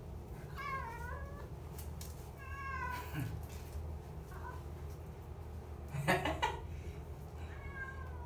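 Orange-and-white domestic cat meowing about five times, each call bending up and down in pitch, the loudest and harshest about six seconds in: the distressed cries of a cat afraid of being bathed.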